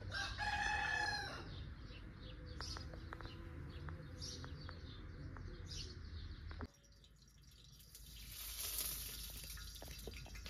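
A rooster crows once near the start, a single call of a little over a second. Quieter background with a few faint clicks follows, then a soft high hiss near the end.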